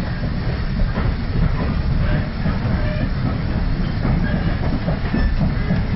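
Steady low rumble of a railway passenger carriage running along the track, heard from inside the coach, with faint clicks of the wheels on the rails.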